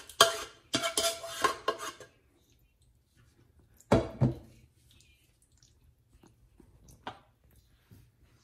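Metal serving spoon scraping and clattering against the inside of a pot as meat sauce is scooped out, for about the first two seconds. Two heavier knocks follow about four seconds in, and a lighter one near the end, as the sauce is spread in the foil pan.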